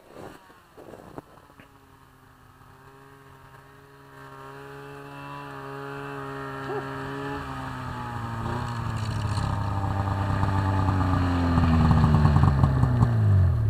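Snowmobile engine approaching, growing steadily louder as it comes closer, with its pitch dropping over the last couple of seconds as it comes alongside.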